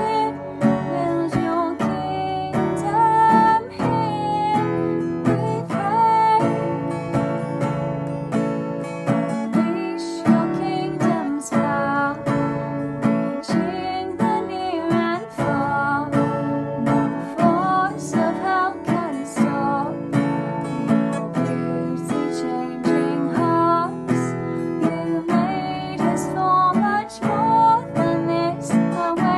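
Acoustic guitar strummed steadily, playing a worship song.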